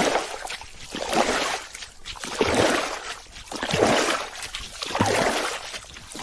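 Water sloshing against a small boat in regular swells, about one every second and a quarter.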